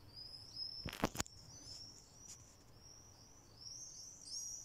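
Common swifts screaming: a string of short, high, overlapping screeches that gets busier near the end. Two sharp clicks come about a second in.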